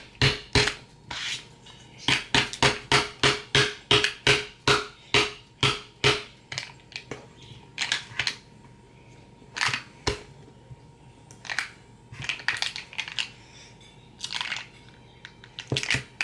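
Repeated sharp knocks of a hand banging on a small plastic glitter container that is hard to open, fast and regular at about three a second for the first six seconds, then slower, scattered knocks with some rustling.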